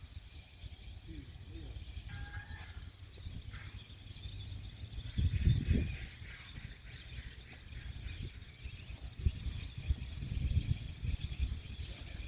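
Faint calls of migratory waterbirds over a steady high outdoor hiss, with intermittent low rumbles, the loudest about five seconds in.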